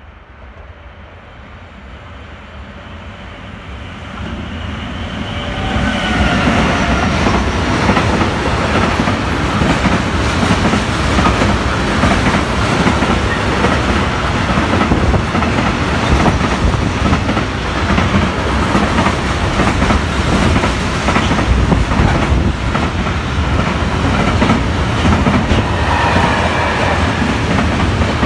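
Freight train approaching and then passing close by at speed. Its noise builds over the first six seconds to a steady loud rumble, with the fast clatter of the wagons' wheels over the rail joints.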